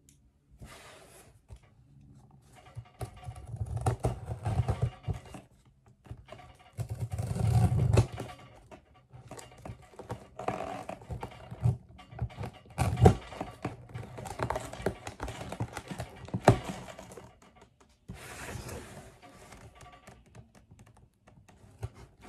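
A cardboard shipping box being opened by hand: packing tape pulled and peeled off, cardboard flaps scraping and rustling, with occasional knocks on the box, in irregular spells with short pauses.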